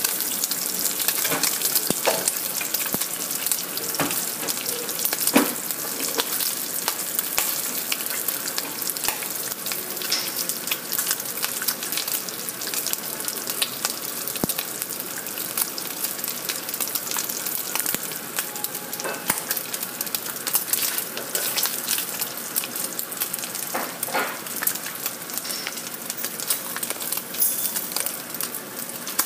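Bacon strips frying in fat in a non-stick pan: a steady sizzle full of small crackling pops from the spattering grease.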